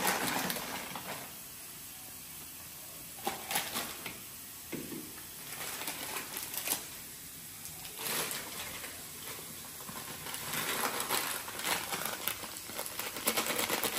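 Kitchen handling sounds: scattered light clicks, knocks and rustles at irregular intervals, more frequent near the end, over a low steady hiss.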